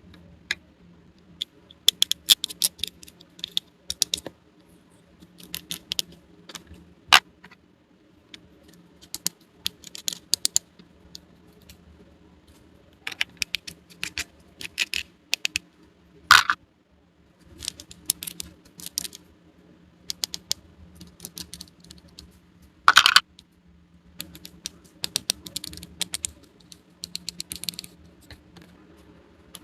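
Small plastic toy pieces being handled and set down, giving irregular clusters of light clicks and taps, with a couple of louder knocks.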